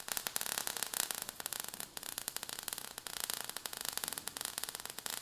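Crackling, static-like hiss of sparks in an intro sound effect, made of many rapid, irregular clicks over a high hiss, with a brief drop a little under two seconds in.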